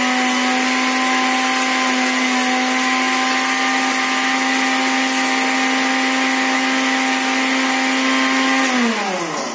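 Small electric blender running steadily, its motor whining as it grinds dry instant noodles into powder. Near the end it is switched off and the whine falls in pitch as the motor spins down.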